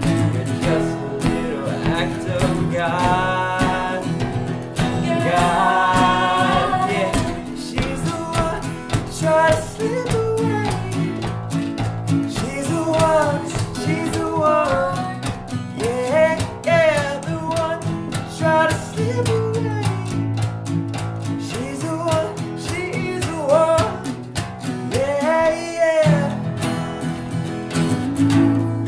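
Three acoustic guitars strummed together under sung vocals in a live acoustic folk-rock song, with more than one voice singing.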